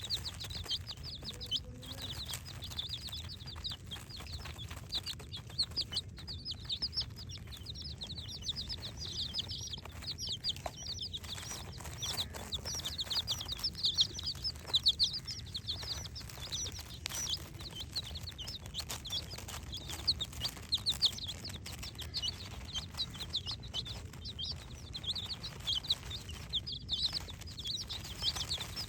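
A flock of chicks peeping, many short high chirps a second without a break, over a low steady hum.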